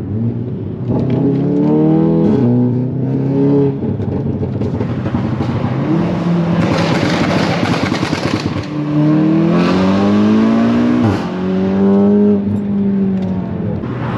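Volkswagen Golf R's turbocharged 2.0-litre four-cylinder engine accelerating hard in race mode, its pitch climbing and then dropping sharply at each of several upshifts, with a loud rushing noise midway.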